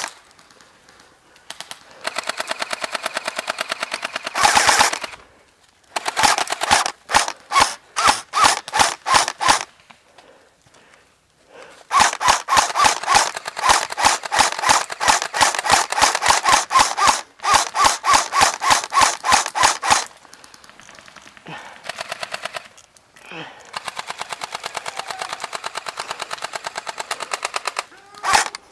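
Airsoft electric guns firing, the nearest an SRC M16A3 electric rifle: fast full-auto strings broken by quicker single shots, with the longest, loudest burst near the middle. A fainter full-auto string near the end.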